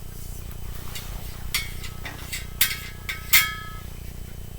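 Brass trombone parts clinking as the bell section is taken off the slide: three sharp metallic clinks, the last two ringing briefly.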